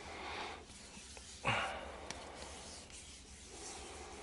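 Hands rubbing and handling a wooden knife handle, with a short, louder scrape about a second and a half in and a small click just after.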